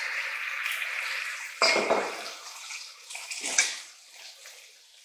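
Cajun-seasoned chicken thigh pieces sizzling in hot olive oil in a Dutch oven, just added to the pan. The sizzle dies down in the last couple of seconds, with two short knocks about a second and a half in and again near three and a half seconds.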